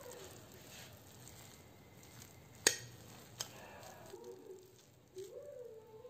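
Metal fork cutting through a soft baghrir pancake and clinking against the plate: one sharp clink about two and a half seconds in and a lighter one shortly after, over quiet handling noise.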